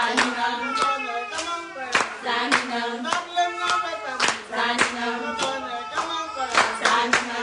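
A group of voices singing together with rhythmic hand clapping, about two claps a second: a celebration song.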